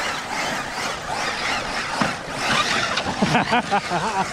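Electric motors of RC bashing trucks whining up and down with the throttle, over the hiss of tyres on dirt and grass. A short burst of voice comes near the end.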